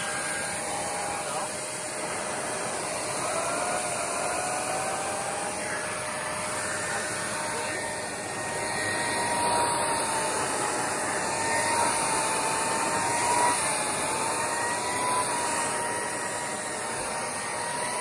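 Shark Rotator Pro ZU782 vacuum running in lift-away mode with its pet multi-tool, suction spinning the tool's brush as it moves over carpet: a steady rush of air with a faint whine that wavers slightly in pitch.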